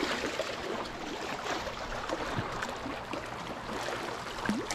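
Small lake waves lapping and splashing irregularly against a rocky shoreline.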